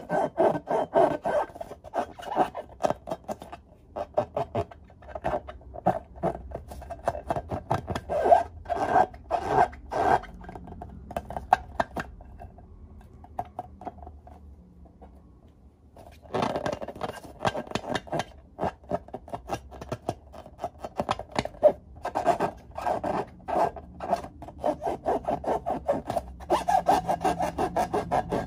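Hands rubbing and squeezing filled latex balloons: a rapid run of short rubber-on-skin rubbing strokes that eases off for a few seconds midway, then picks up again.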